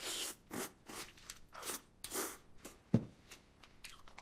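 A person eating noisily: a string of short, irregular crunching and chewing noises, about two a second, with a sharper knock about three seconds in.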